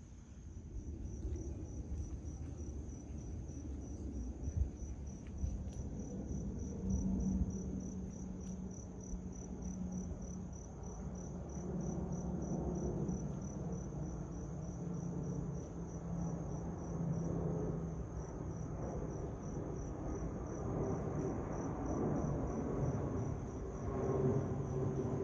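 Twin-engine jet airliner passing overhead at a distance, a low rumble with a faint hum that grows louder toward the end. Crickets keep up a steady, evenly pulsing high chirp throughout.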